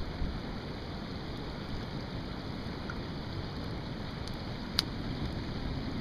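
Wood campfire crackling faintly, with one sharp pop a little under five seconds in, over a steady low rush of wind and water.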